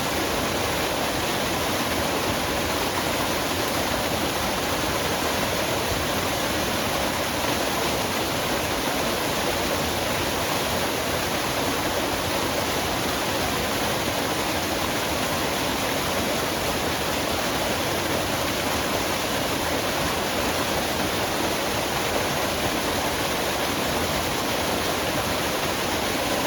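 Waterfall splashing steadily, a continuous even rush of falling water.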